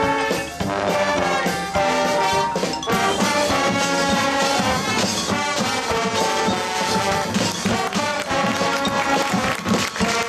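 High school marching band playing its competition show: brass sections holding and moving through chords over marching percussion.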